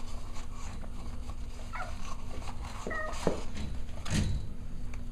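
Six-week-old Cavalier King Charles spaniel puppies giving two short squeaky whines about a second apart, the first falling in pitch, with a knock near the end.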